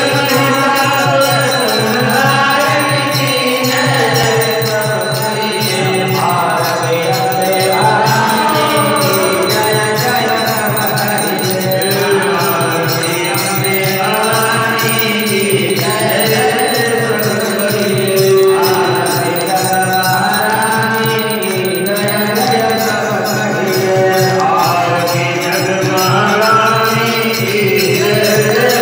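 Men singing the evening aarti to the goddess Durga (Mata Rani) in unison through a microphone and PA, a devotional Hindu hymn with a continuous melodic line. Rhythmic hand-clapping keeps time behind the voices.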